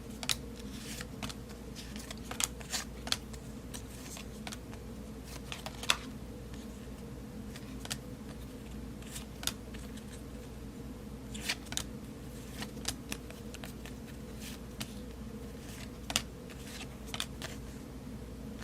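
Baseball cards being handled and flipped through: irregular soft clicks and rustles of card stock sliding and tapping together, over a steady low hum.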